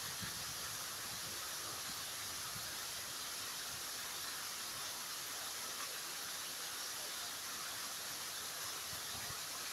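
Steady outdoor wind noise, an even hiss with faint, uneven low rumbles of wind on the microphone.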